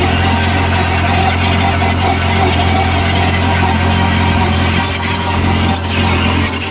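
Massey Ferguson 9500 Smart tractor engine running steadily, heard from the driver's seat.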